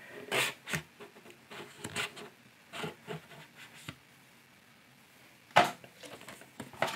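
Handling of a VHS-tape-style collector box as its outer case is slid off to show the figure inside. Scattered rustles and light clicks come first, then a short pause, then two sharp clicks near the end.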